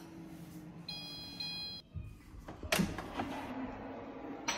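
Philips Airfryer XXL control panel beeping, a short two-part electronic tone signalling that cooking is done. Then a sharp click and a sliding sound as the fryer's basket drawer is pulled open, with another click near the end.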